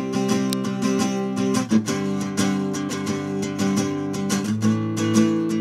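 Outro music: a strummed guitar playing steady chords that change every couple of seconds.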